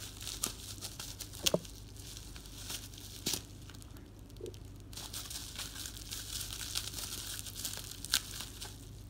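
Parcel packaging crinkling and tearing in irregular crackles and sharp snaps as a parcel is opened by hand.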